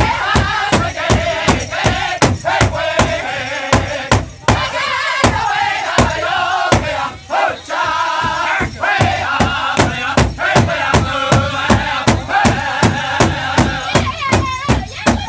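Powwow drum group: several men singing together in high, wavering voices while striking one large powwow drum in unison with a steady, even beat.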